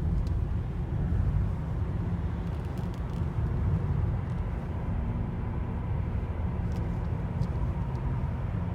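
Toyota Corolla E180 on the move: a steady low rumble from the car, with a few short, faint high squeaks scattered through it.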